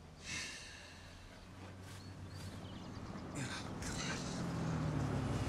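A dog making a few brief high-pitched sounds, one just after the start and more around the middle, over a low rumble that grows louder toward the end.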